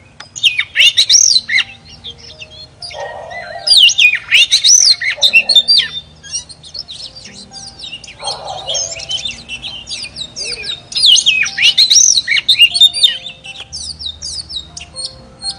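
Oriental magpie-robin singing: phrases of rapid, varied, rich whistles. The song is loudest about a second in, around four to six seconds in, and again around eleven to thirteen seconds in, with quieter song between.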